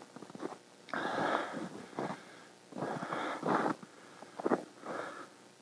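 A man's heavy breathing close to the microphone, short noisy breaths coming about once a second.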